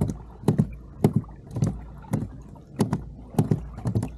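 Irregular knocks and thuds on a plastic fishing kayak, a dozen or so in quick uneven succession, each with a sharp click on top, over a low steady rumble.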